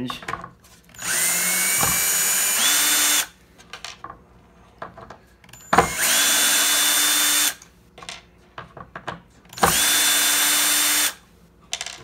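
Ryobi cordless drill backing Phillips screws out of a kitchen cabinet door hinge in three short runs, each a steady motor-and-gear whine; the first steps up in pitch partway through. A sharp click comes just before the second run, and small clicks of handling fall in the gaps.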